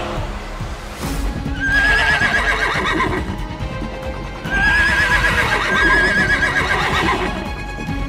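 A horse whinnying twice, each a long call with a quavering pitch, the first about a second and a half in and the second about four and a half seconds in, over background music.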